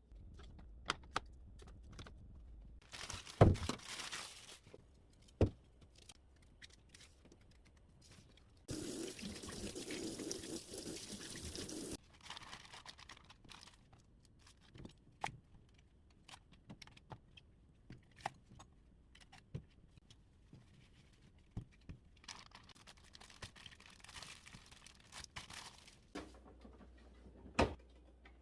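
Household handling sounds: scattered knocks and clicks of things being picked up and set down, with a short rustling stretch a few seconds in and a steady noisy stretch of about three seconds near the middle.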